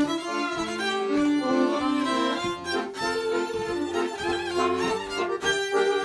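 Two violins and an accordion playing an instrumental klezmer tune live, the violins bowing the melody over the accordion's chords.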